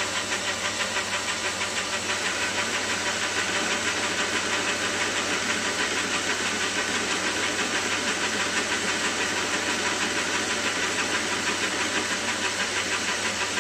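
Small metal lathe running steadily while a carbide-insert tool turns down one end of a generator rotor's metal shaft, with a low steady hum and a fast, even pulse in the noise.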